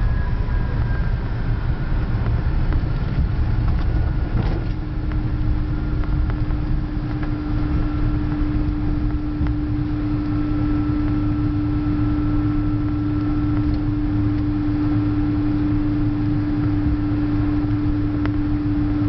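Cabin noise inside an Airbus A300-600 airliner rolling on the ground after landing: a steady engine and rolling rumble. A steady hum comes in about four and a half seconds in and holds.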